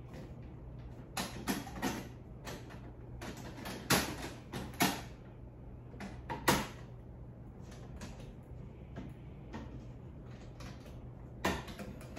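Irregular clicks, knocks and light rattles of a whiteboard easel's tripod legs and fittings being handled and adjusted during assembly, with a few sharper knocks spread through, over a low steady hum.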